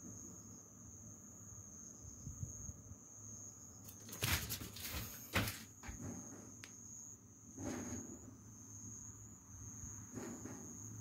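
A steady, high-pitched insect trill runs throughout. A few loud knocks and rustles come about four to five and a half seconds in, with softer ones near eight and ten seconds.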